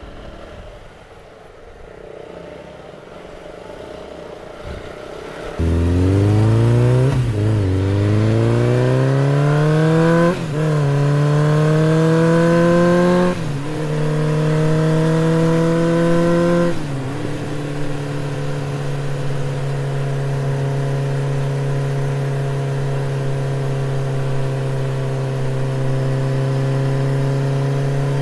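Motorcycle engine pulling away and accelerating up through the gears. Its pitch climbs in each gear and drops at each of four upshifts, about every three seconds, then holds a steady note at cruising speed.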